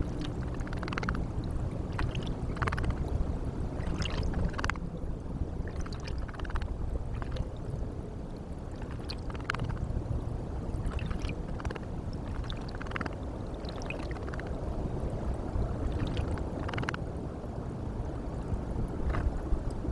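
European robin bathing in a shallow rock pool: short, irregular splashes and flicks of water as it dips and shakes its wings, over a steady low rushing background.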